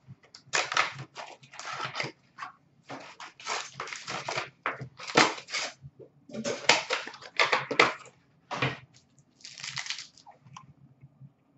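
Cardboard hockey-card box and its foil card packs being handled and torn open: irregular crinkling, rustling and ripping of packaging in short bursts.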